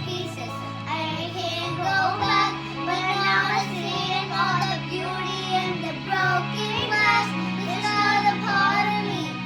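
Children singing a K-pop song over a backing track with long, held bass notes.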